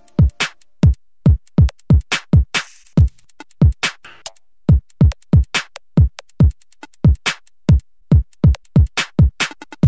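Electronic background music built on a drum-machine beat: deep kick drums that drop in pitch, about two to three a second, between sharp snare and hi-hat hits.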